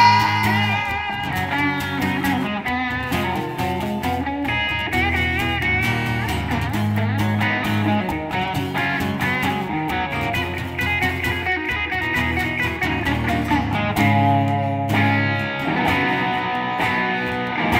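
Live acoustic duo instrumental break: a lead guitar solo with bent notes on an acoustic-electric guitar over a strummed acoustic guitar, with no singing.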